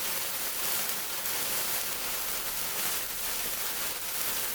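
Sparkler burning: a steady fizzing hiss of sparks with a fine, flickering crackle.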